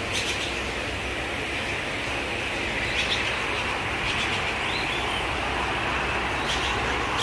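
Small birds giving a few short, high chirps now and then over a steady background hiss.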